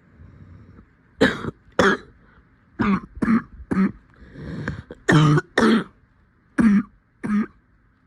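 Repeated coughing fits: about nine sharp coughs in groups of two and three, with a softer, longer sound partway through.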